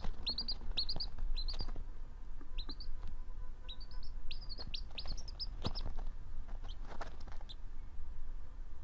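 Baby birds cheeping: many short, high chirps rising in pitch, often in quick runs of two or three, stopping about a second before the end. A few soft knocks.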